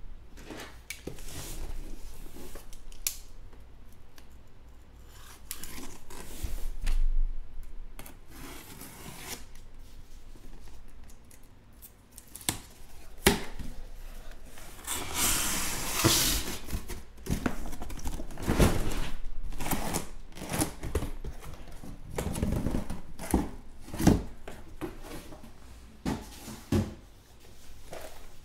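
A sealed cardboard shipping case being cut and torn open, its flaps pulled back with scraping and tearing of tape and cardboard. The shrink-wrapped trading card boxes inside are then slid out and stacked, with irregular knocks and rustles.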